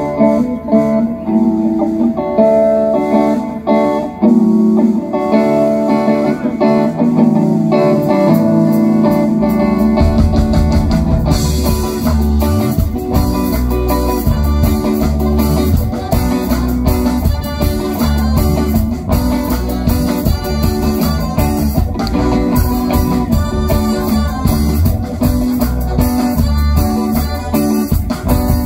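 Live band playing amplified through a PA: electric guitar and keyboards open the tune, then bass guitar and drums come in about nine seconds in, with cymbals joining a couple of seconds later.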